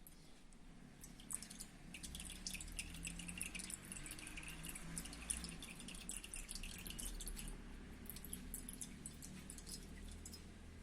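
Thickened homemade cough syrup dripping and trickling through a strainer: a dense patter of small drips that starts about two seconds in and thins out near the end.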